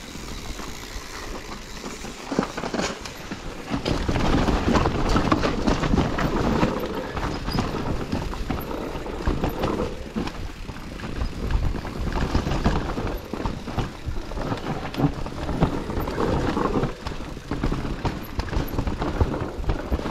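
Mountain bike riding down a rough trail: tyres rumbling over the ground amid a constant clatter and knocking from the bike. It gets clearly louder about four seconds in as the ride turns rougher or faster.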